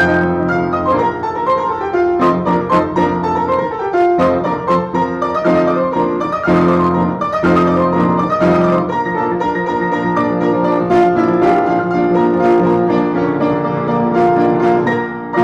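Upright piano played by two people at once, four hands on one keyboard: a continuous piece of many fast notes in both low and high registers, heard over a video call.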